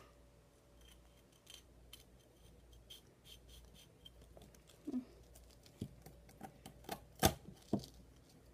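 Faint, scattered clicks and scrapes of a small sharp knife working at the halves of an animal cracker and its white filling, with one sharper click about seven seconds in.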